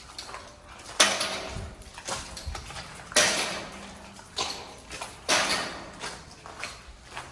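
A series of sharp knocks at uneven intervals, each trailing off in a brief rustle: camp gear being handled.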